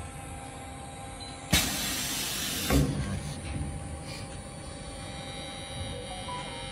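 Acrylic edge-polishing machine running with a steady hiss and hum. About a second and a half in comes a sudden loud hiss lasting about a second, then a brief knock-like jolt a second later.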